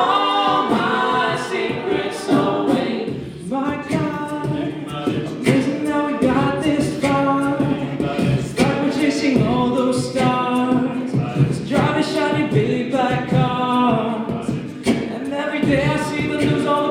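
An a cappella vocal group singing in harmony: several voices and no instruments.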